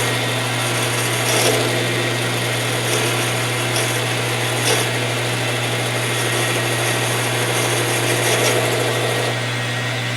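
Metal lathe running, its motor humming steadily, while a cutoff (parting) tool scrapes against the turning metal stock with occasional sharp clicks; the cutting noise drops away about nine seconds in.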